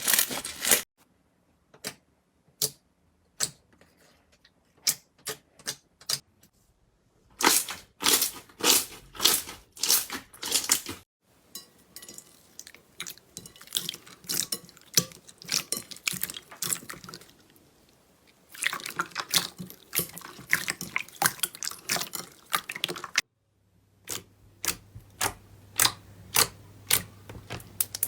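Slime being squeezed and poked by hand, giving runs of sharp wet clicks and pops. The sound comes in several short segments that start and stop abruptly.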